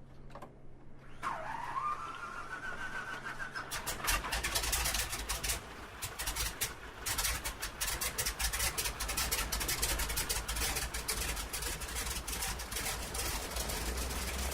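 An engine being started: a click, then a starter whine rising in pitch. About four seconds in the engine catches and runs with rapid, uneven firing pops over a low rumble.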